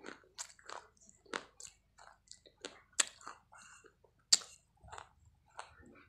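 Close-miked chewing and crunching on hard, brittle white chunks: a run of sharp, crisp crunches, with two louder bites about three and four seconds in.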